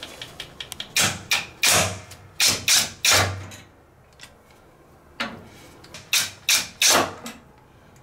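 A series of sharp knocks and clanks from the sheet-metal cabinet panels of a front-load washing machine being pushed and worked loose during disassembly. The knocks come in two clusters with a short quiet gap between them.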